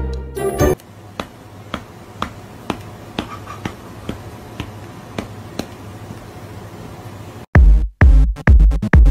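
Meme background music: a music phrase cuts off just under a second in, followed by sparse ticks about twice a second, then a loud electronic track with a heavy bass beat kicks in about seven and a half seconds in.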